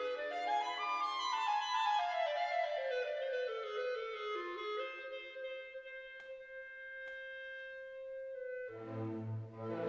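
Instrumental music cue: a single melodic instrument plays a quick run up and then steps back down, holds one long note, and then lower instruments come in with a fuller chord near the end.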